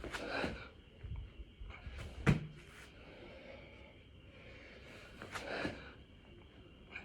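A person doing six-count burpees: hard, forceful exhalations at the start and again about five seconds in, and one heavy thud about two seconds in as the body lands on the floor.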